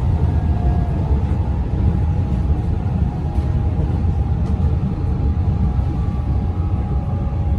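Metro Trains Melbourne electric suburban train running steadily, heard from inside the carriage: a loud, even low rumble with a faint steady high whine over it.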